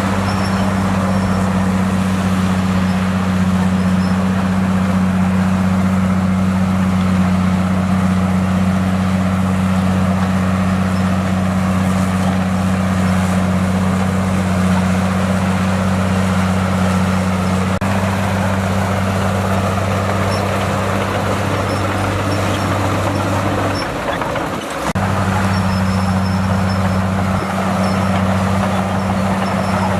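Diesel engine of heavy earthmoving equipment running steadily: a constant low hum under a rumbling noise, dipping briefly about 24 seconds in.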